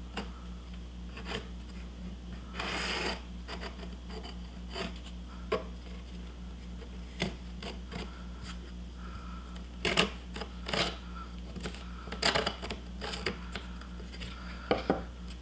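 Pencil tracing around a wooden template on a cedar board: scratchy strokes of graphite on wood, with scattered light knocks as the wood pieces are shifted on the bench. A steady low hum runs underneath.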